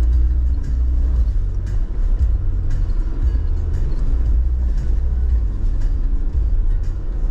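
Jeep Wrangler Rubicon's EcoDiesel V6 turbodiesel running as it drives slowly along a rough dirt trail. It is heard as a steady, heavy low rumble with scattered faint clicks.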